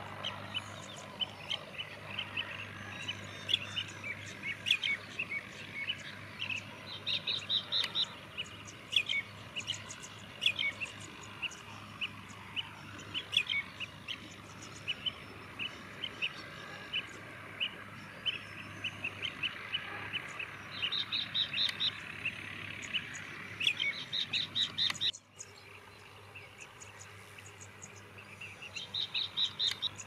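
Common mynas calling: a busy mix of short chirps, whistles and chatter, with several quick runs of repeated high notes.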